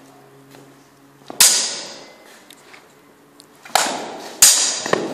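Steel longswords striking in full-contact armoured combat: three ringing metal clashes, one about a second and a half in and two close together near the end, each followed by a fading ring.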